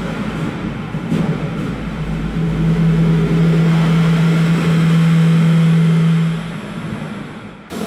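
Elevator hallway ambience: a steady low hum from the elevator machinery swells about two seconds in, holds, and dies away about six and a half seconds in, over constant background noise. The sound cuts off abruptly near the end.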